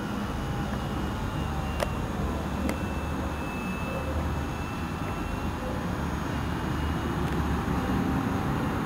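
A small electric RC model plane flying overhead, its brushless motor and scale four-blade propeller giving a faint high whine that drifts in pitch, over a steady low rumble. Two sharp clicks come about two and three seconds in.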